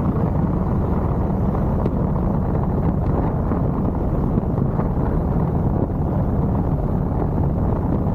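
Harley-Davidson Road Glide Limited's V-twin engine running at a steady cruise, with a low rumble under a rush of wind on the microphone.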